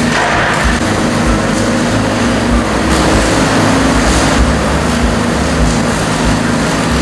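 Steady machinery running: a low, even hum of several constant tones under a wash of noise, with no distinct strikes or rhythm.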